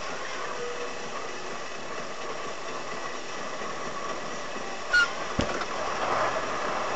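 Steady engine and road noise of a moving vehicle, heard from inside the cab, with a short high chirp about five seconds in, followed by a low knock.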